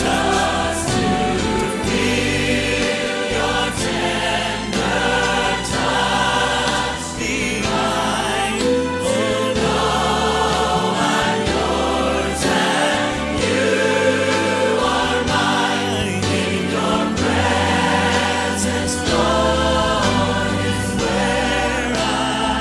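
Choir singing a gospel worship song in sustained phrases over instrumental backing with a steady bass line.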